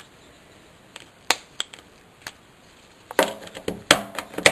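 Small hand-held clicks and knocks from a reassembled GM headlight dimmer switch being worked by hand: a few separate clicks, then a quick run of clicking in the last second and a half.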